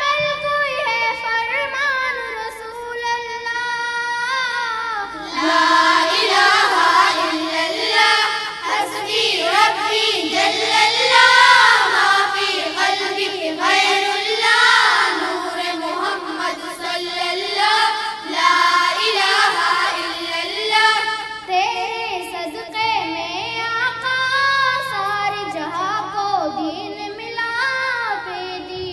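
Schoolchildren singing a Hamd, a hymn in praise of Allah, led by a girl at a microphone. The singing gets louder and fuller about five seconds in.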